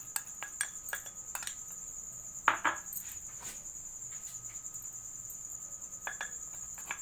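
A steel spoon clinking and scraping against metal bowls as gram flour is scooped and tipped from one bowl into another, in scattered light knocks with one louder knock about two and a half seconds in. A steady high-pitched trill sits behind it.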